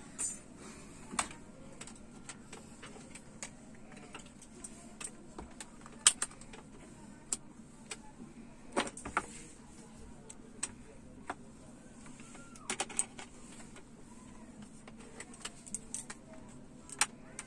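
Hand-work on an LED TV panel: irregular light clicks and taps as tools and a multimeter with its probe leads are handled on the panel, the sharpest about six seconds in, over a steady low hum.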